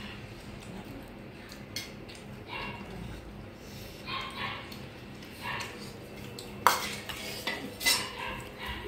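Steel spoon clinking and scraping against stainless steel bowls and plates in a run of scattered clinks, with two sharper clinks about two-thirds of the way through.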